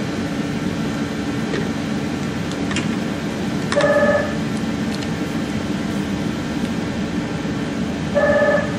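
A short electronic beep, several steady tones at once and about half a second long, sounding twice, about four seconds in and again near the end, over a steady low hum. A few faint clicks come in between.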